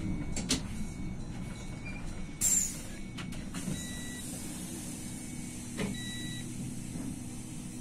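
Iveco city bus driving, heard from inside: a steady low engine and road drone with occasional rattles and knocks. About two and a half seconds in comes a short, loud hiss of released air, and two brief high beeps sound later.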